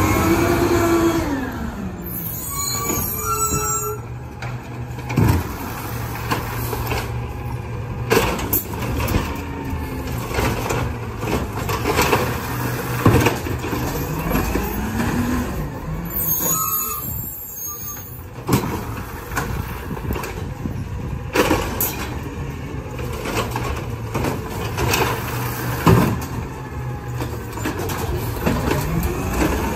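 Natural-gas Peterbilt 320 garbage truck with an Amrep automated side-loader arm working curbside carts. The engine revs up and falls back several times as the arm's hydraulics lift and dump the carts, over a steady idle. Two hisses of air from the brakes, about two seconds in and again about halfway, and scattered knocks of carts being handled.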